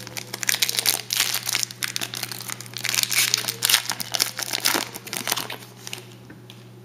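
Foil wrapper of an Upper Deck Trilogy football card pack being crinkled and torn open by hand: a dense run of crackles that dies away about six seconds in.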